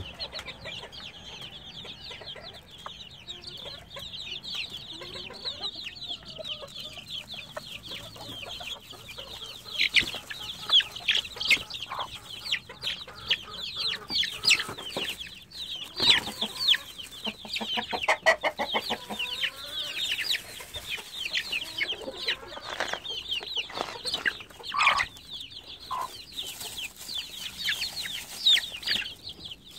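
A brood of chicks, chicken and pheasant chicks together, peeping constantly in short, high, falling chirps. Mixed in are a hen's occasional clucks and sharp pecking clicks and rustles at the feed bag.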